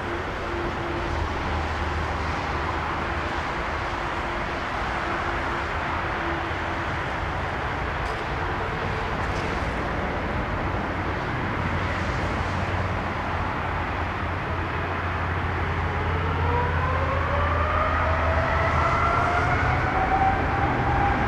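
Jet engines of a Boeing 747-8 (four GEnx-2B turbofans) running steadily at low thrust, then spooling up about three-quarters of the way in, with a rising whine and growing loudness as takeoff power is set.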